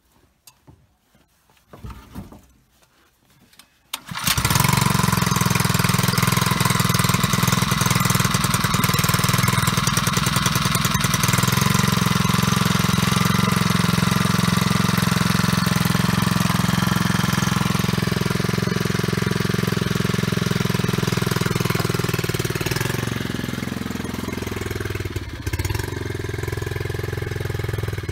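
Small gasoline-engine transfer pump starting up about four seconds in, then running steadily at a constant speed while it pumps maple sap through its hoses. Near the end its note drops and it gets a little quieter.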